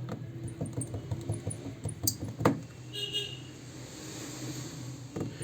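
Scattered light clicks and taps of small plastic and metal phone parts being handled during reassembly, one sharper click about two and a half seconds in, over a steady low hum.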